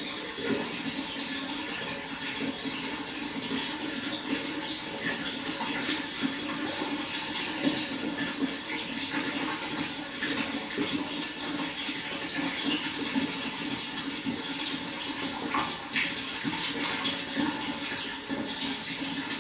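Water flowing steadily, a continuous splashing rush with many small drips and splashes in it.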